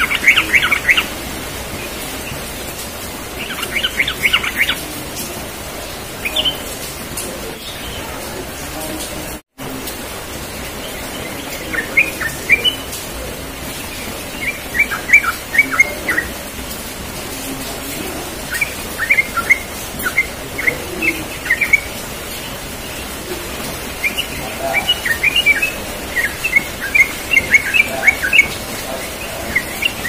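Yellow-vented bulbul singing: bursts of quick, bubbling chirps lasting a second or two each, separated by short pauses, the bursts coming longer and closer together near the end.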